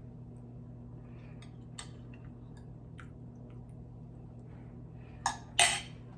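Steady low hum with a few faint ticks, then two sharp clatters close together about five seconds in, the second louder and briefly ringing.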